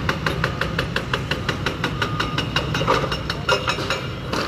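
Hydraulic breaker on a Volvo wheeled excavator hammering a reinforced-concrete pillar in rapid, regular blows, about six a second, over the steady run of the excavator's diesel engine.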